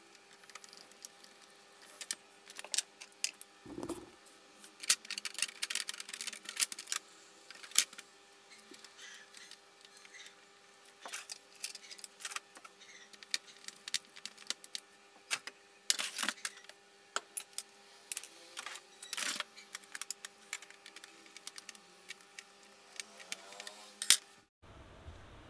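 Irregular clicks, taps and clatters of plastic parts being handled and worked loose inside an opened Epson L361 inkjet printer during disassembly, with a faint steady hum beneath them. The sharpest click comes near the end.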